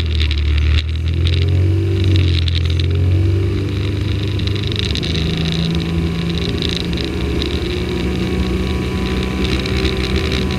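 Cabin sound of a GA8 Airvan's six-cylinder piston engine and propeller running on the ground, a steady drone whose note shifts higher about halfway through.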